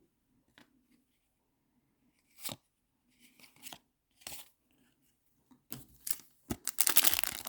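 A foil trading-card pack being torn open, with a loud crackling tear starting near the end. A few soft taps of card handling come before it.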